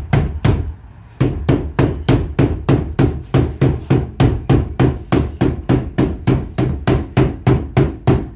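Rapid, steady hammer blows, about four to five a second with a short pause about a second in, as code 4 lead flashing clamped along an old spirit level is tapped over to form a bend. The blows have a bit of a ring.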